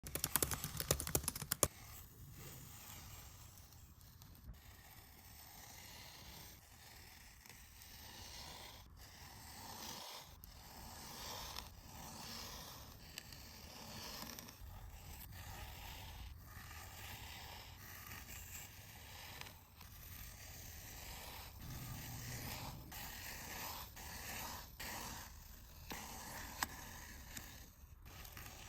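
Kinetic sand being cut, giving soft, steady scraping and crunching, with a quick run of sharp clicks in the first couple of seconds.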